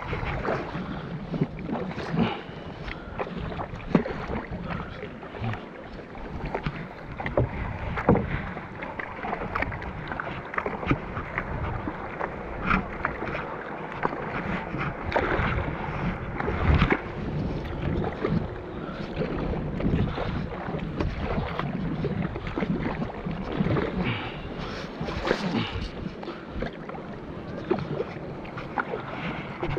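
Kayak paddling: a paddle's blades dip into and splash the water in irregular strokes, with water sloshing against the hull.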